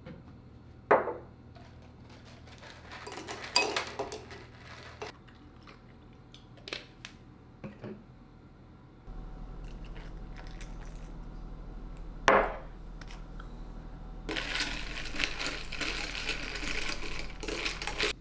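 Glasses knocking down on a wooden table, then ice cubes rattling against a wine glass as an iced coffee latte is stirred with a straw for a few seconds near the end.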